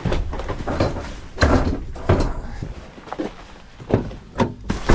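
A series of irregular knocks and thuds, eight or so sharp hits in a few seconds, like a door or other hard object being handled.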